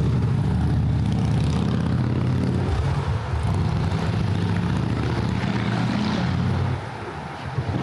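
A large vehicle's engine running close by with a steady low hum, over general street traffic noise; the engine sound drops away suddenly near the end.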